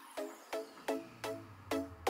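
Background music: a repeating pattern of short, quickly fading notes, about two to three a second, with a low bass tone coming in under it about half a second in.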